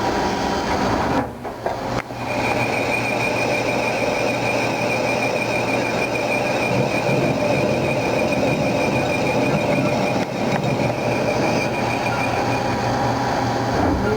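Haas CNC lathe cutting an aluminum workpiece: a dense, steady machining noise that dips briefly just over a second in, then carries a steady high whistle from about two seconds in until near the end.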